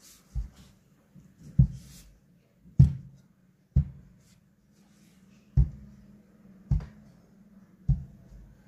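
Seven dull thuds about a second apart as an electric clothes iron is pressed down again and again onto a cloth-covered surface, over a faint steady low hum.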